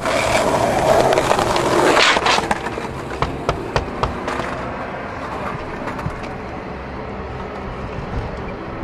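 Skateboard wheels rolling over concrete, loud for the first two seconds or so, then a few sharp clacks, with a quieter steady noise after them.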